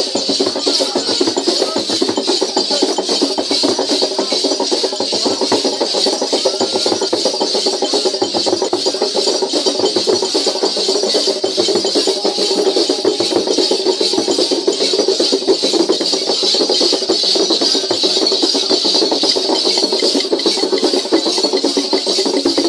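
Zingo dance music: dense rattling percussion with drums, going without a break, mixed with crowd noise.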